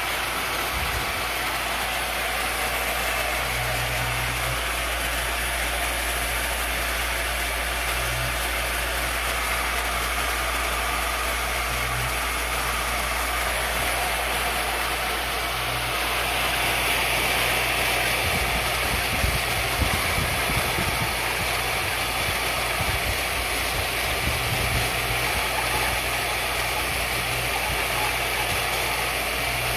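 CNC-converted X2D mini milling machine running its belt-driven spindle while an end mill cuts into a wooden board: a steady whir and cutting hiss over a low hum, with a lower hum that comes and goes. It grows a little louder and rougher about halfway through.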